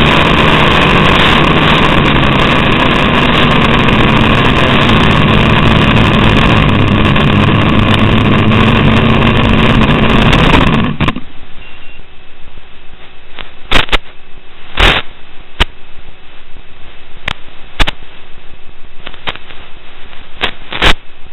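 Audio track of a small FPV quadcopter's video link as recorded in the goggles: a loud, steady rush of noise with a low hum underneath. About eleven seconds in it drops sharply to a quieter hiss broken by scattered sharp clicks.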